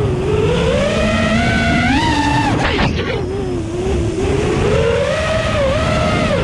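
FPV drone's brushless motors and propellers whining, the pitch rising and falling constantly with the throttle, over a low rush of air. About three seconds in the whine briefly drops away and snaps back, as the throttle is chopped and punched again.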